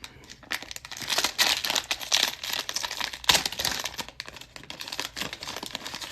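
Crinkling and tearing of a cellophane trading-card pack wrapper as it is ripped open and handled.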